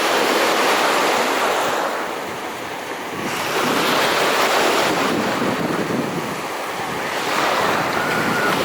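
Sea waves surging and washing, swelling three times a few seconds apart, with wind on the microphone.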